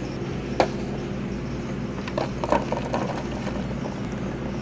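Car engine idling, heard from inside the cabin as a steady low hum. A sharp click comes about half a second in, and a short bout of clatter from handling things in the cup holder comes between two and three seconds in.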